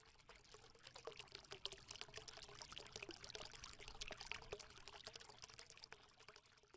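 Faint, irregular crackling clicks, many a second, starting just after the start and dying away about a second before the end.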